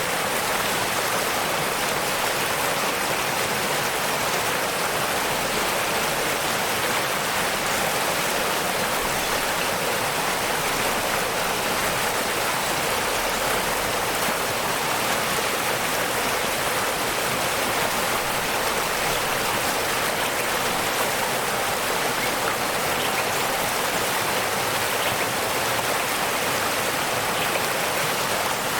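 Waterfall: a steady, unbroken rush of falling water, heavy in the mid and high range with little low rumble.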